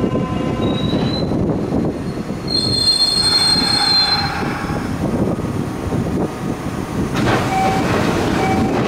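Kintetsu electric train rumbling along the platform on its wheels, with a high steady wheel squeal about two and a half seconds in that fades after a second and a half. Near the end there is a burst of hiss as the train comes to its stop.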